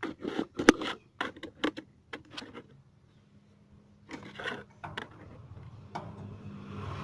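Rapid clicks and knocks of panel parts being handled as the front of a showcase refrigerator is opened, then a short rustle and two single clicks. A low steady hum builds near the end.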